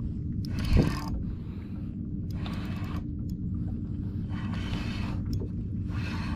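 Spinning reel cranked in short spells about every two seconds while a hooked fish is reeled in, over a steady low hum.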